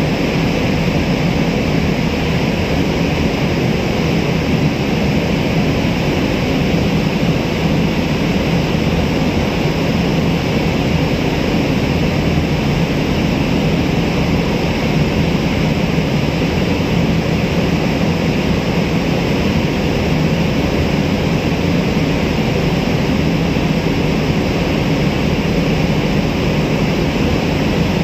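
Steady low drone of a boat's engine running on the river, under an even rushing hiss of water and wind.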